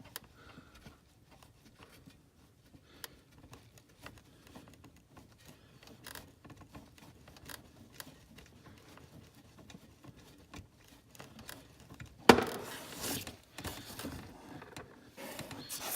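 Faint scattered clicks and small handling noises as the check plug is worked out of the ATV transfer case. About twelve seconds in there is a single sharp knock, followed by a couple of seconds of rustling, clattering handling.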